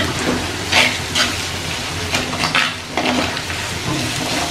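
Chopped onions sizzling in hot oil in a clay pot, stirred with a metal spoon that scrapes against the pot in several short strokes.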